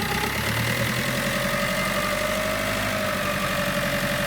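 Iveco Daily's Fiat-built diesel engine idling steadily with a light diesel clatter, running again after sitting unused for ten months; a faint steady whine runs over it. The owner finds an exhaust leak somewhere on it.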